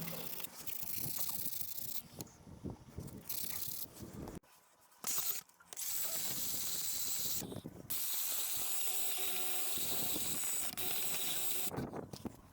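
Ratchet wrench clicking as nuts are run down and tightened on the tractor's axle housing studs, broken by a few sudden gaps.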